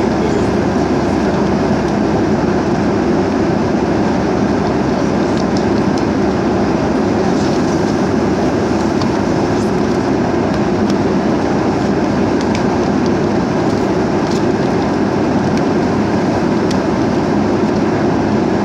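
Steady cabin noise inside an airplane, a loud, even rush, with a few faint clicks over it.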